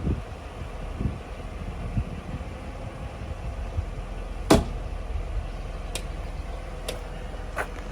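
1995 Mercedes-Benz E320 Cabriolet with a steady low hum and four sharp clicks in the second half, the first the loudest.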